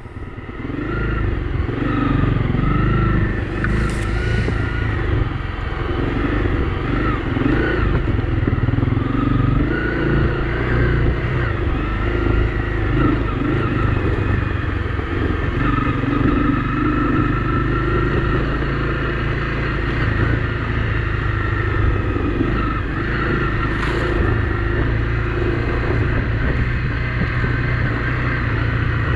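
Honda CRF250 Rally's single-cylinder engine running steadily under riding load, its pitch wavering up and down with the throttle, picking up about a second in. Two brief sharp clicks stand out, one about four seconds in and one later on.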